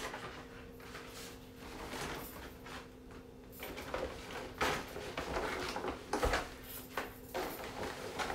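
Someone rummaging for an item: scattered knocks, clicks and rustles of things being moved and handled. A faint steady hum runs underneath.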